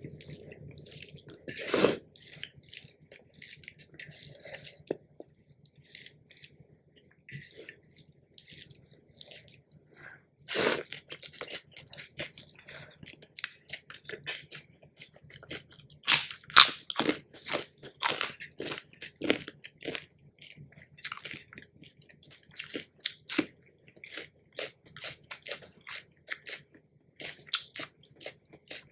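Close-miked eating: a person chewing and biting into crisp food, with irregular crunches throughout and a few loud ones about 2 seconds in, near 11 seconds and around 16 to 17 seconds.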